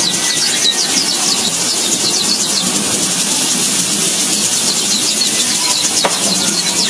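Dense, steady chorus of many short, high chirps repeating rapidly over a constant hiss, from small birds such as a weaver colony. A single sharp click about six seconds in.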